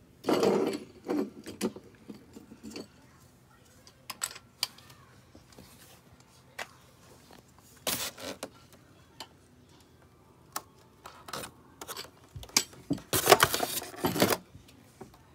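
Telescope kit parts and styrofoam packing being handled: scattered clicks, knocks and rattles, with louder bursts of rustling and scraping just after the start and again about two seconds before the end.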